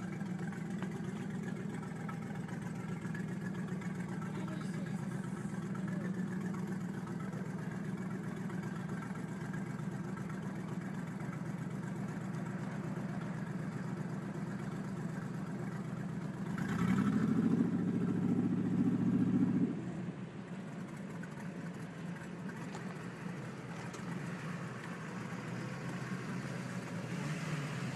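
A vehicle engine running steadily. About two-thirds of the way through, a louder, higher engine note rises and holds for about three seconds, then drops back.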